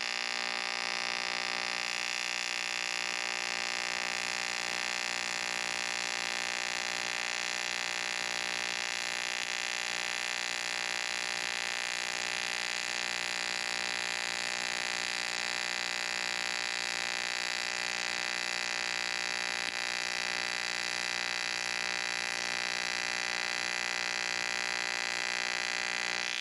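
AC TIG welding arc on aluminum sheet from an Arccaptain TIG200P: a steady high-frequency buzz made of many even tones, held at one level through the pass, then cutting off suddenly at the end as the pedal is released.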